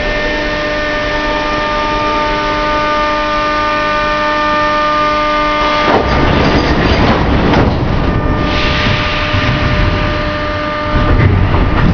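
Old metro car standing at the platform with a steady electrical hum of several pitches. About halfway through, louder rumbling noise takes over, then a hiss of air, and near the end a louder low rumble as the train starts to pull away.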